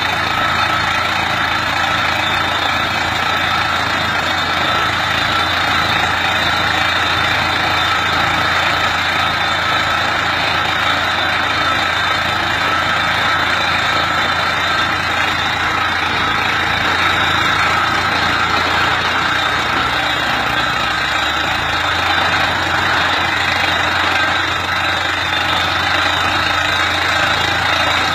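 Tractor engine running steadily, driving the hydraulics of a PTBW-150 tractor-mounted water well drilling rig through the PTO, with a steady high whine over it.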